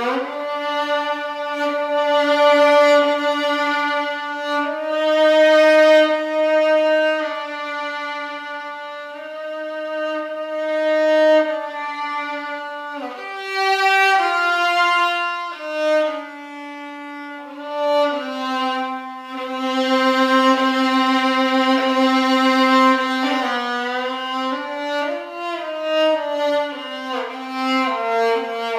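A solo bowed string instrument playing a slow melody in long held notes, with a few slides between notes.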